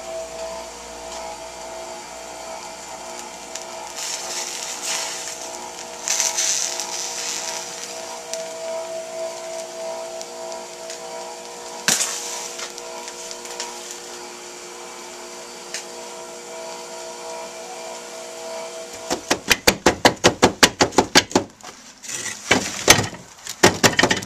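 Oil-fired foundry furnace's electric blower running with a steady hum and hiss, with brief hissing surges and one sharp crack while molten cast iron is poured from the ladle into a sand mould. Near the end the hum cuts off and a quick run of loud rustling strokes follows, then a few irregular knocks.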